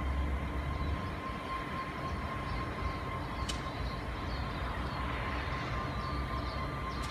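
Pacific National 82 class diesel-electric locomotives, EMD 12-710 engines, running as the consist approaches slowly: a steady low rumble with a thin high tone over it. A single sharp click sounds about three and a half seconds in.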